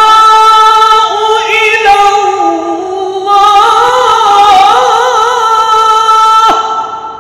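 A man reciting the Quran in the melodic mujawwad style, drawing out a long, ornamented note that wavers up and down in pitch. It breaks off about six and a half seconds in, leaving a short fading echo.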